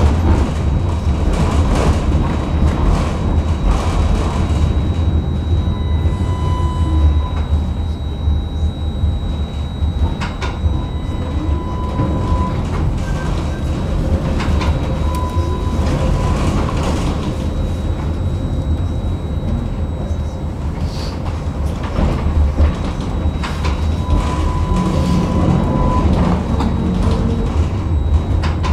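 Tram running, heard from inside the passenger car: a steady low rumble from the motors and wheels on the rails, with a few sharp knocks and brief thin whines now and then.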